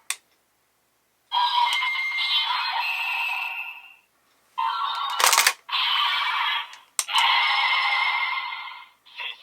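Ultraman transformation toy playing electronic sound effects and music in several bursts, separated by short gaps. A sharp click comes about five seconds in, and another about seven seconds in.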